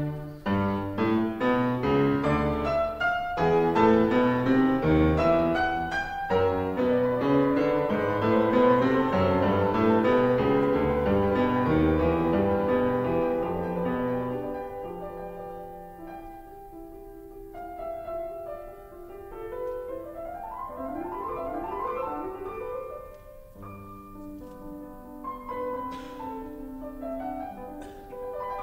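Instrumental classical-style piano music: busy and full for about the first half, then softer, with quick rising runs in the second half.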